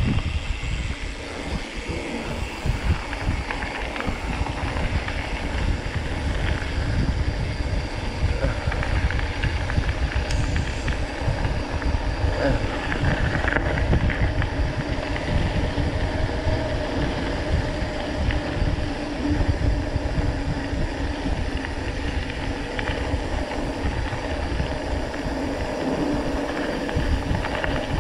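Mountain bike riding over a rough dirt road: wind buffeting the camera microphone and tyres rolling and crunching on gravel, with the bike rattling. It is a steady, dense rumble throughout.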